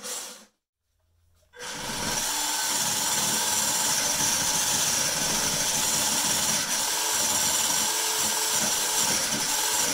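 Electric motor and gearbox of a WPL D-42 RC van running steadily at full throttle with a whine, its tyres spinning in place against the table in a burnout attempt. It starts about a second and a half in.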